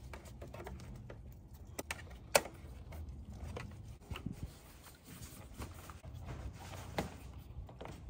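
Gloved hands handling a wiring harness in an engine bay: faint rustling with scattered small clicks and taps of cable against plastic and metal, the sharpest about two and a half seconds in and another near the end.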